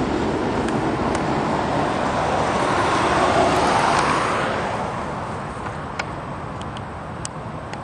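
Highway traffic noise, with a car passing close by: its tyre and engine noise swells to a peak about three to four seconds in, then fades away.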